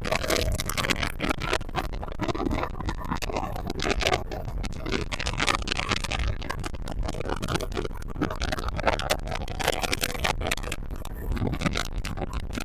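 Rushing wind and water noise aboard a boat running at speed, buffeting irregularly and steadily throughout.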